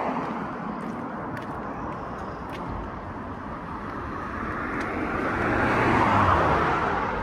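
Road traffic noise, with a passing vehicle that swells to its loudest about six seconds in and then fades.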